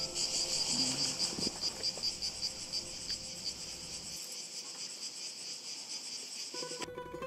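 Insects chirring in a dense, high, fast-pulsing chorus that stops abruptly near the end.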